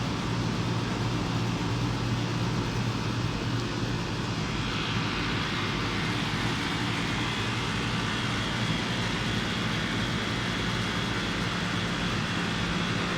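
Lennox air conditioner running steadily: a low hum under an even rush of air. About four and a half seconds in, a faint high-pitched whine joins and holds.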